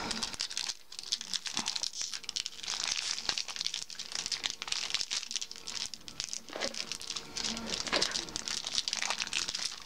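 Foil Yu-Gi-Oh booster pack wrapper crinkling steadily as it is handled and torn open.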